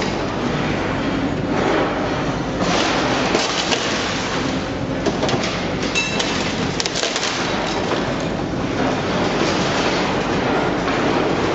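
Heavy machinery running with a steady, loud, noisy din, with a brief high metallic squeal about six seconds in.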